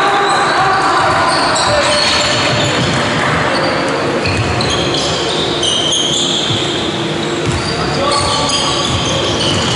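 Live basketball game sounds in an echoing sports hall: the ball thudding on the wooden court as it is dribbled, trainers squeaking on the floor, several around the middle, and players' and spectators' voices calling.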